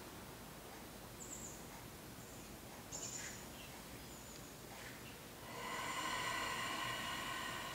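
A person breathing out slowly and audibly through the nose for about two seconds, starting a little past halfway. A few faint short high chirps come before it.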